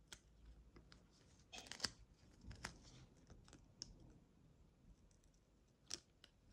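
Small scissors snipping a paper nail form, with faint crinkling as the form is cut and handled; a few short snips around two seconds in and a sharp click near the end.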